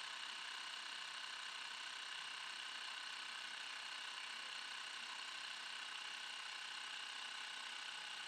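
Xiaomi Mi portable electric air compressor running steadily with a high whine while inflating a football to a preset pressure.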